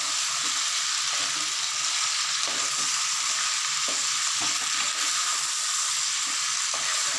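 Country chicken pieces frying in hot sesame oil in a pan, a steady sizzle as the chicken's water cooks off, with a few short knocks and scrapes from stirring.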